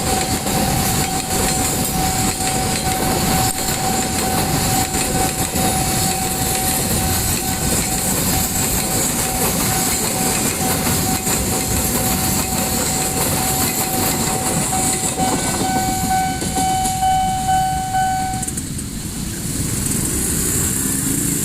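A train passing through a level crossing, its wheels clattering over the rail joints. A steady high tone runs alongside and cuts off a few seconds before the end, after which the train noise eases.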